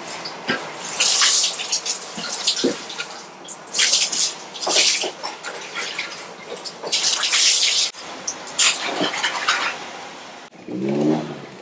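Bucket-bath water poured over a person with a dipper, splashing onto a wooden floor in several pours of about a second each. Near the end a dog growls briefly.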